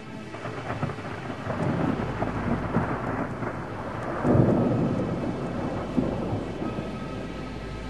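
Thunder rolling over steady rain. It builds over a few seconds to its loudest crash about four seconds in, with another sharp crack about six seconds in, then dies away.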